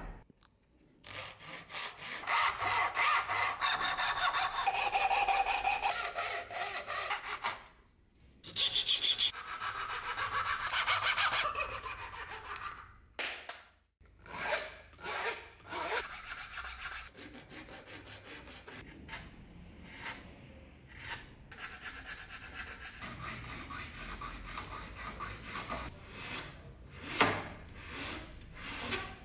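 Hand-sawing a small walnut block held in a vise: a long run of fast, rasping saw strokes with a short pause near the middle. After a break, quieter, uneven rubbing strokes follow as a small wooden piece is drawn back and forth across a flat file.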